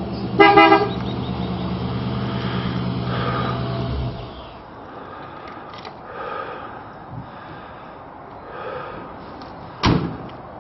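An old Chevrolet sedan's engine idling steadily, then switched off about four seconds in. A short horn beep sounds near the start, and a single loud thump like a car door shutting comes near the end.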